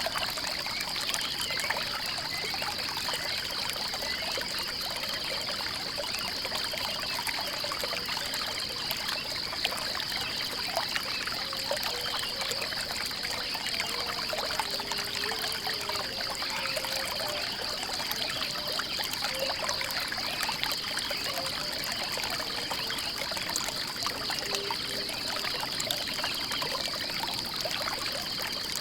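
Water trickling and pouring in a small stream, steady throughout, with a continuous high-pitched pulsing buzz over it.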